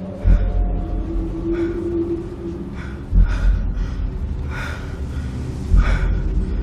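Horror film soundtrack: a man breathing in short, ragged gasps, over three deep low booms spaced a couple of seconds apart.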